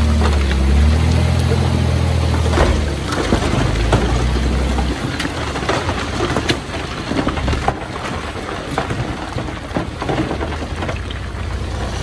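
Heavy diesel engine of earthmoving machinery running loudly, then dropping away after about three to five seconds. Scattered knocks and clatter continue through the rest.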